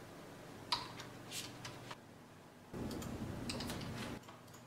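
Typing on a Logitech computer keyboard: short runs of key clicks, one about a second in and another around three and a half seconds.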